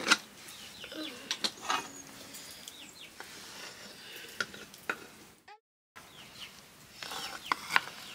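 Metal spoon scraping and clinking against an aluminium pressure cooker as cooked rice is scooped out, with scattered sharp clinks.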